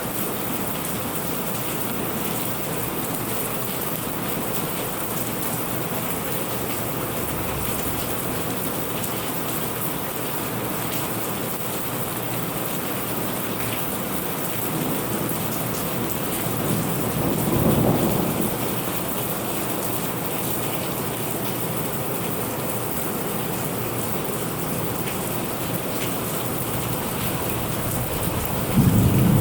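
Steady heavy rain falling, with a low rumble of thunder swelling and fading a little past halfway, and another roll of thunder starting right at the end.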